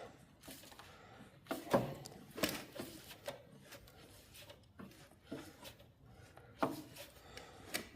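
Irregular clicks and knocks of a hand wrench on metal as stiff, grimy bolts on an old snowblower engine are worked loose, the loudest about two seconds in.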